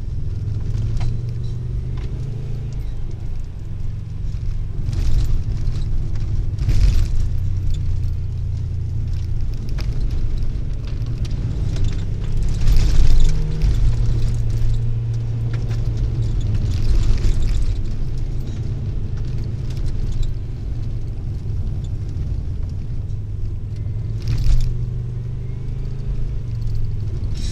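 Subaru driving on a gravel road, heard from inside the cabin: a steady low engine drone that shifts in pitch now and then, over the rush of tyres on gravel. A few brief louder rushes of road noise stand out, the biggest about halfway through.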